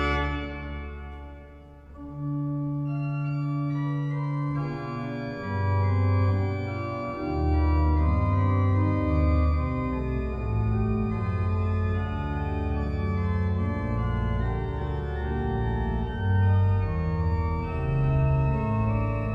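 Organ music: long held chords that fade briefly just after the start, resume about two seconds in, and move faster with a shifting bass line from about five seconds in.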